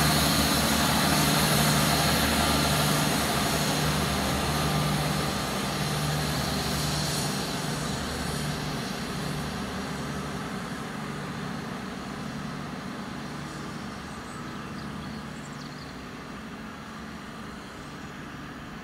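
Class 158 diesel multiple unit moving away down the line, its diesel engines running with a steady low drone that fades steadily as the train recedes.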